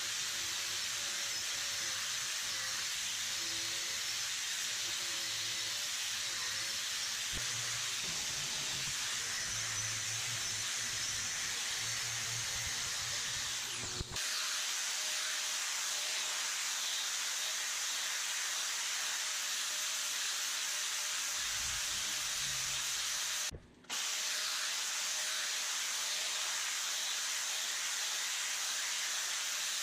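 Electric angle grinder abrading a steel car front axle down to bare metal: a steady, even grinding hiss, broken twice for a moment.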